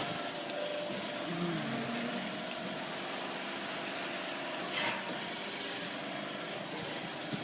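Hydraulic press brake's pump motor running with a steady mechanical hum, with two sharp clicks, one past the middle and one near the end.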